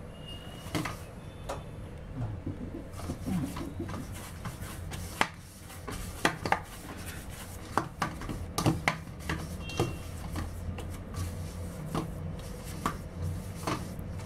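Pearl millet (bajra) dough being kneaded by hand in a stainless steel bowl: soft pressing and squashing of the dough, with irregular sharp clicks and knocks from the steel bowl as it is worked, over a low steady hum.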